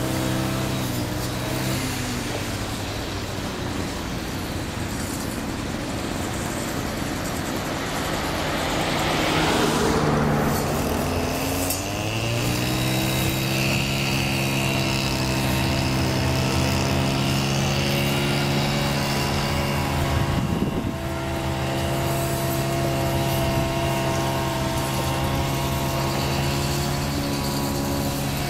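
Kobelco crawler excavator's diesel engine running steadily as the machine travels under its own power up a ship's loading ramp. A swell of noise rises and falls about ten seconds in, and then the engine note dips and climbs back before holding steady.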